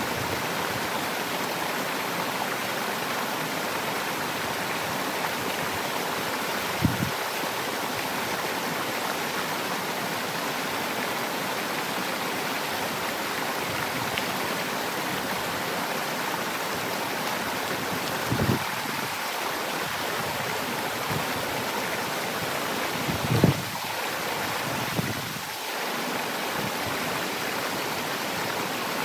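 Steady rushing water, with a few soft low knocks scattered through it.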